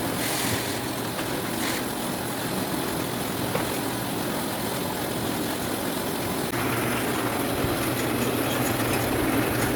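Orange sorting machine running with a steady mechanical hum, which grows a little louder about six and a half seconds in.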